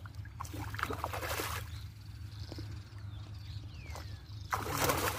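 Hooked carp splashing at the water's surface as it is drawn in, in two bursts, about a second in and again near the end, over a steady low hum.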